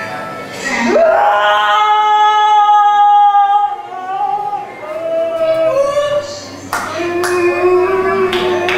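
A woman singing slowly: she slides up into a long held note about a second in, then sings shorter phrases; sharp clicks come in near the end.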